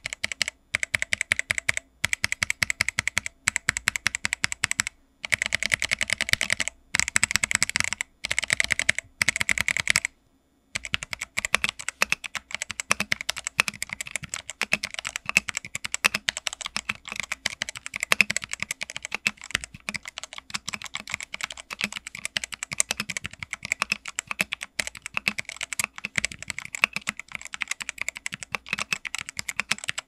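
Typing on a VortexSeries GT6 hot-swap mechanical keyboard with Otemu switches, a fast stream of key clicks and clacks. It comes in short bursts with brief pauses for the first ten seconds, then runs on as continuous, faster typing. The switches have a spring ping that can be heard clearly, as is usual for Otemu switches.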